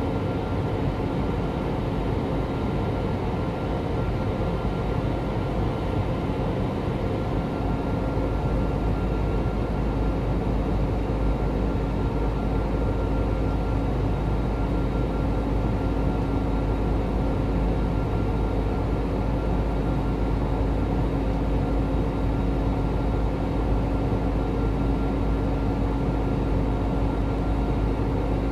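Steady cabin noise of an Airbus A320-family airliner in flight: an even rush of engine and airflow noise with a constant low hum and a few faint steady tones, unchanging throughout.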